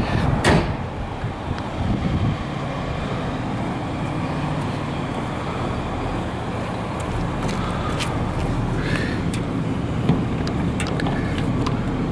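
Steady low rumble of road traffic, with a knock about half a second in and a few light clicks later.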